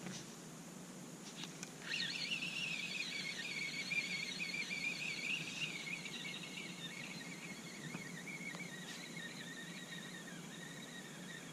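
A few light clicks as the feeder rod is lifted, then the spinning reel being cranked steadily, a wavering whine that sinks slowly in pitch and fades, as a hooked bream is wound in.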